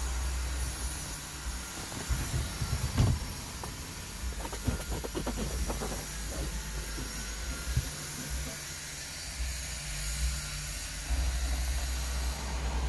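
A steady low rumble with a hiss. A few seconds in there is a run of bumps and rubbing as a hand brushes over the car's leather and quilted-fabric seat upholstery close to the phone microphone.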